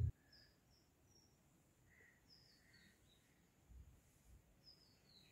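Near silence with faint birds chirping in the background: a scattered string of short, high chirps.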